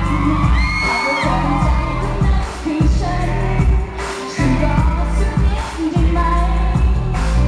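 Live Thai pop performance: a woman sings into a handheld microphone over a loud backing track with a heavy bass beat. The bass drops out briefly twice, about one second in and about four seconds in.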